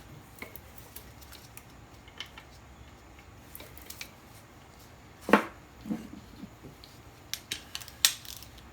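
Scattered metallic clicks and clinks of a 12mm socket and ratchet working the alternator adjuster bolt, with one sharp clank a little past halfway and a few more clicks near the end.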